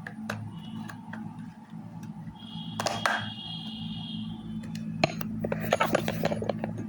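Small attar box being opened by hand: light clicks, a scrape with a brief high squeak about halfway, then a sharp click and a quick run of rustling clicks near the end, over a steady low hum.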